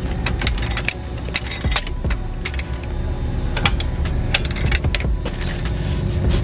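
Irregular metal clicks and clinks of wheel hardware being handled as a wheel is fitted to the car's hub, over a steady low rumble.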